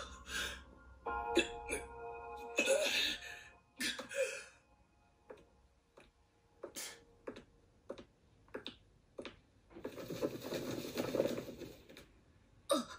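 Anime episode soundtrack: quiet, sparse background music with scattered sharp clicks and hits, and a stretch of hissing noise about ten seconds in.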